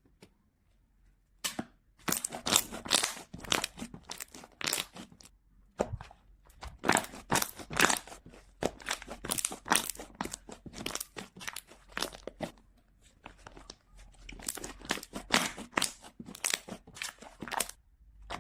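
Foam slime being squeezed and pressed by hand, giving dense runs of crackling, popping clicks. It starts about a second and a half in and goes on with a few short lulls.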